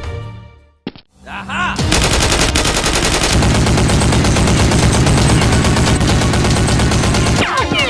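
Automatic gunfire sound effect: one long, unbroken burst of rapid shots starting about two seconds in, after music fades out.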